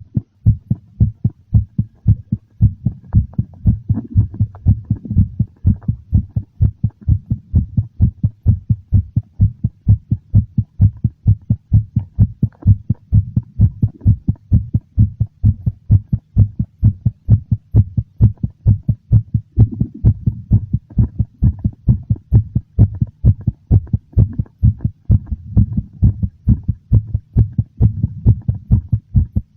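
Heartbeat, slightly fast and very noticeable: a steady, even run of low thuds.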